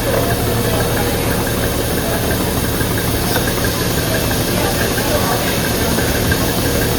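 Goat milking machine running: the parlor's vacuum system hums steadily under a constant hiss of air.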